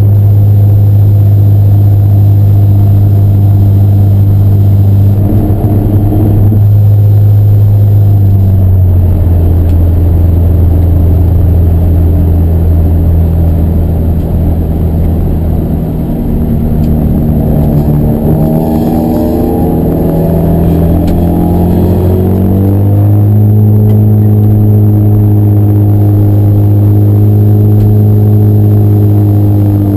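Racing car engine running hard at close range, loud throughout. Its pitch holds steady for the first several seconds, drops about eight seconds in, then climbs steadily in the middle as the car accelerates before levelling off.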